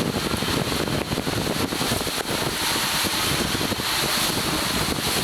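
Steady rush of falling and splashing water in a water park, a loud even noise without distinct beats.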